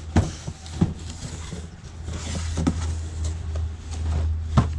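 Hands handling plastic toy figures and their containers: a few sharp clicks and knocks, the loudest near the end, with a short rustle around the middle, over a steady low hum.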